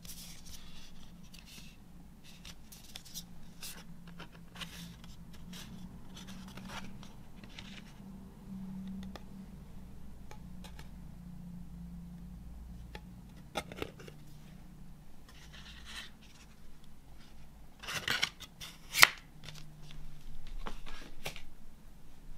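Hands handling a cardboard CD sleeve and disc: card and paper rustling and sliding in short scattered strokes, with a few sharp clicks near the end, one of them the loudest sound.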